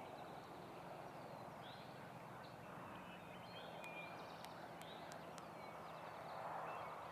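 Quiet woodland ambience: a soft steady rush with faint, scattered songbird chirps and a few light clicks, and a faint low hum that joins about three seconds in.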